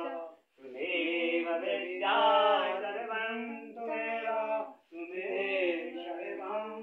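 A man singing a Hindu aarti, a devotional hymn to the goddess, unaccompanied, in long held chanted phrases. He breaks briefly for breath about half a second in and again about five seconds in.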